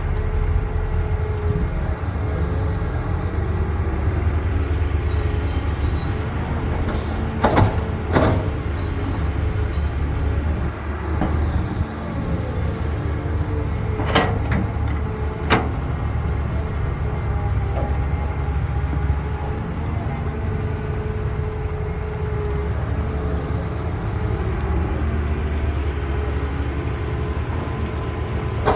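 Heavy diesel engine of a Caterpillar excavator running steadily with a steady whine, and a few sharp knocks, two about seven to eight seconds in and two more about halfway through.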